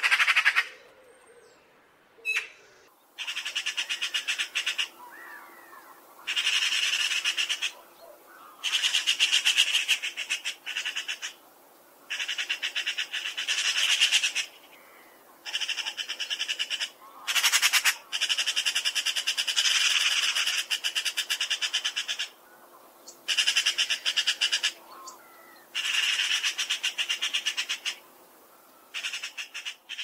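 Eurasian magpie chattering: about ten bouts of rapid rattling calls, each a second or two long, with short pauses between them.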